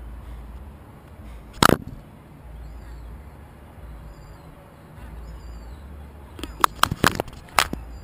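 Seagull knocking at a GoPro camera on the ground: one sharp knock about two seconds in, then a quick cluster of about five knocks near the end.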